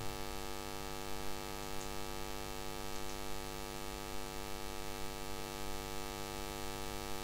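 Steady electrical mains hum in the recording: an unchanging buzz with many evenly spaced overtones stacked above it.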